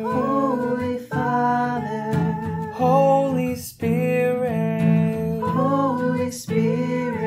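Worship song: an acoustic guitar strummed as accompaniment while several voices sing together in sustained phrases.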